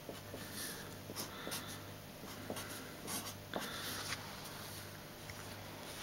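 A marker pen writing on a sheet of paper in short, irregular scratchy strokes.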